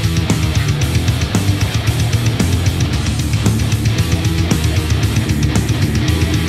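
Heavy rock music with electric guitar and a drum kit, playing at a steady beat.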